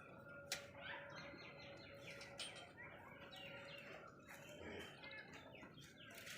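Faint chirping of small birds, many short quick calls, with a sharp click about half a second in and a faint steady hum that stops near the end.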